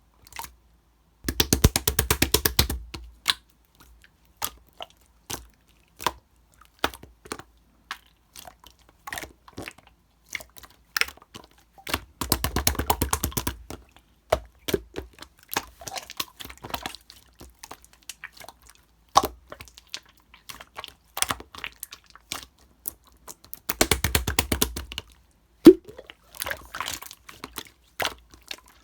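Hand-played slime giving three bursts of rapid crackling clicks, each a second or two long, with scattered single pops and squelches between.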